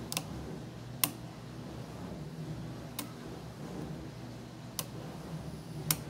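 Pin-tumbler challenge lock being picked pin by pin: about five sharp, irregularly spaced clicks as the pins are lifted and set. The lock holds serrated pins that click as they ride past their serrations.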